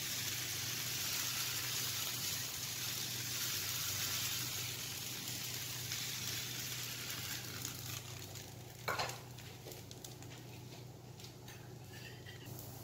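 Thin coconut-milk crepe batter sizzling as it is piped in loops onto a hot tawa, the hiss fading over the second half; a brief knock about nine seconds in.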